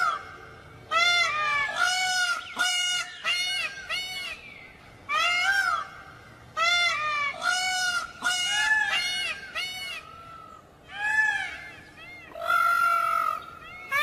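Peacocks calling: a rapid series of loud, short honking calls, each rising and falling in pitch, often in twos and threes, with one longer, level call near the end.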